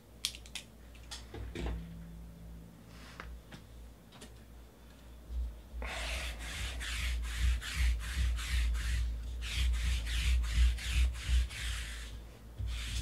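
Sticky lint roller rolled back and forth across the desk, a rasping rub of about three strokes a second that starts about six seconds in and stops near the end. Light clicks and taps of handling come before it.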